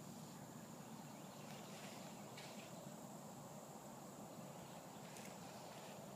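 Quiet outdoor ambience with a faint, steady, high-pitched insect drone, and a few faint brief rustles in the grass.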